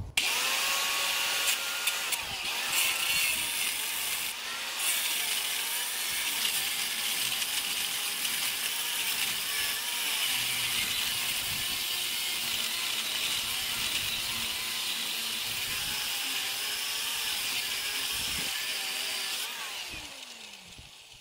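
Angle grinder with a part-worn cutoff disc cutting into a seized bolt in a truck's lower shock bushing; its motor pitch wavers as the disc is loaded. Near the end it is switched off and winds down.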